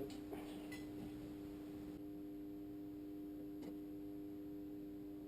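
Quiet workshop background: a steady low hum with a few faint single ticks, likely light contact of tools or parts.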